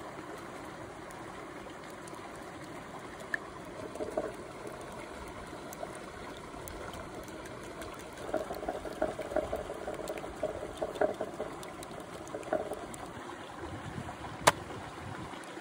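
A stream running steadily, with a few seconds of quick, uneven clinking and swishing from about halfway as an egg mixture is stirred in a terracotta bowl. A single sharp knock near the end.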